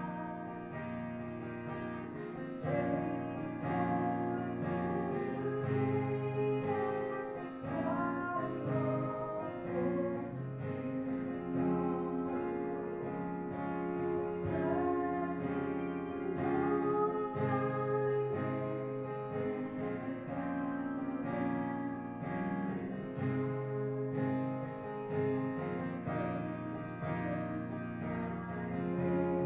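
Music: strummed acoustic guitar with singing.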